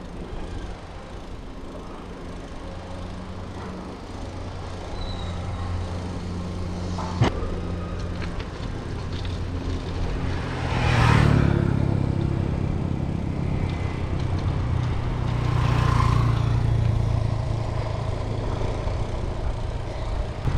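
Motor vehicles passing on a road: a steady engine hum with two louder passes that swell and fade, one about halfway through and one about three-quarters through. A single sharp click comes about a third of the way in.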